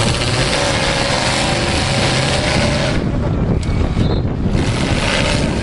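Demolition derby car engines running and revving under load, with a dense rushing noise over them that eases off about three seconds in and returns near the end.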